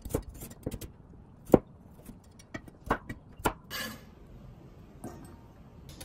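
Chinese cleaver slicing carrot on a bamboo cutting board: several irregular sharp knocks of the blade on the wood, the loudest about a second and a half in. A brief scrape near four seconds in as the slices are gathered onto the blade.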